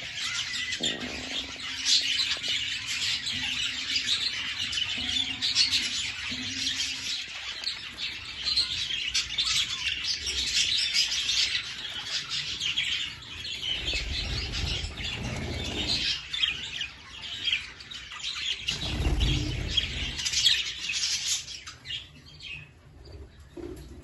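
A flock of budgerigars chattering and warbling, a dense run of fast, high chirps, with brief bursts of wing flapping around the middle. The chatter thins out near the end.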